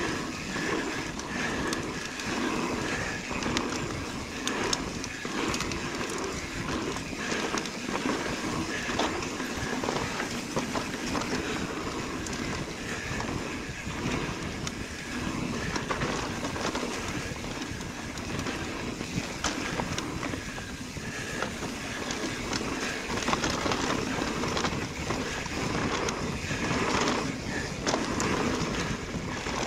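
Mountain bike rolling fast down a dirt trail: steady tyre noise on dirt and gravel, broken by frequent clicks and rattles from the bike over bumps.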